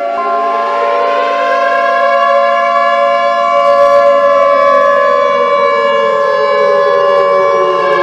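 Civil defense siren wailing, layered with a steady single-pitch electronic alert tone; the siren slowly falls in pitch over the second half.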